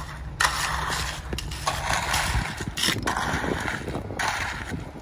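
Concrete rakes scraping through wet concrete in repeated strokes about a second apart, over the low steady rumble of a concrete mixer truck running.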